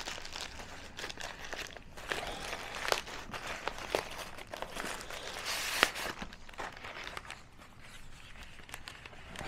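Plastic mailer bag and bubble wrap crinkling and rustling as a package is opened and unwrapped by hand, with a few sharp crackles.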